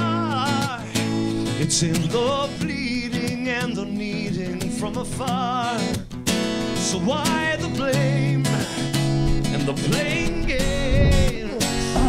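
Background music: an acoustic guitar song with a wavering sung melody over strummed chords.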